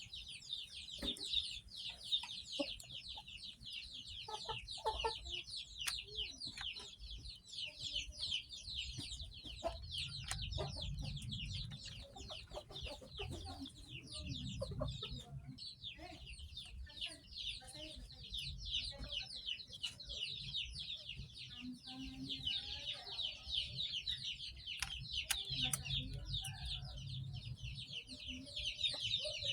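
Many chicks peeping together in a continuous, dense chorus of short, high, falling chirps.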